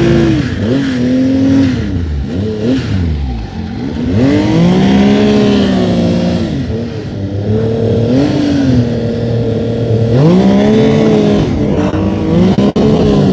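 Snowmobile engine revving up and easing off over and over, its pitch rising and falling in several surges, with one deep drop about three and a half seconds in before it climbs again.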